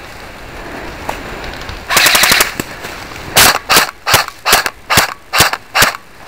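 Airsoft gun firing: a short rapid burst about two seconds in, then seven single shots in quick succession, about two and a half a second.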